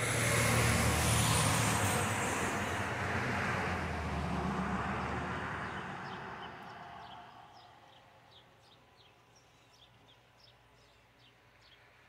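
A car driving past on the road, loudest about a second in and fading away by about halfway through. As it dies away, a bird gives a run of short, high chirps.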